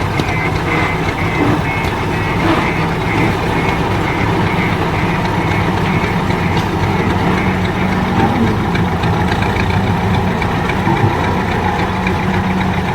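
Heavy diesel engine of road-construction machinery running steadily. For the first few seconds a high electronic beep repeats rapidly over it, like a reversing alarm.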